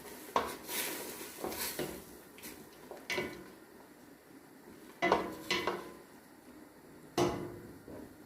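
Metal utensils knocking and scraping against a metal cooking pot: a string of separate clanks, some ringing briefly, the loudest around five and seven seconds in.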